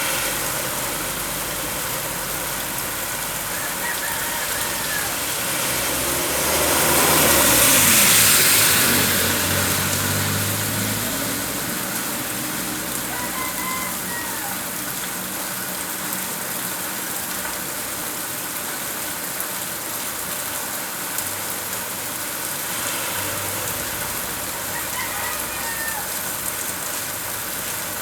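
Steady rain falling. A vehicle passes about six to ten seconds in, the loudest moment, its pitch falling as it goes by. A few brief high chirps sound now and then.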